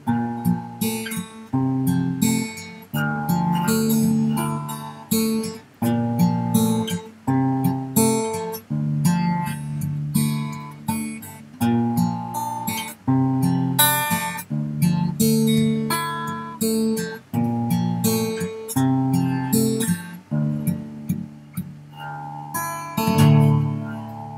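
Steel-string dreadnought acoustic guitar strummed solo, chord after chord in a steady rhythm, with a last loud strum near the end left to ring out.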